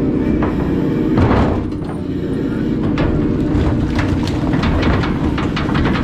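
Steady low drone of a fishing boat's engine and deck machinery. About a second in comes a brief rush of noise, and from about three seconds on a rapid run of knocks and slaps as cod are shaken out of a steel-framed pot onto a stainless sorting table.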